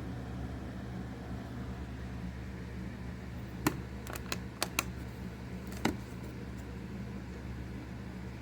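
A steady low hum, with a cluster of about six sharp clicks between three and a half and six seconds in.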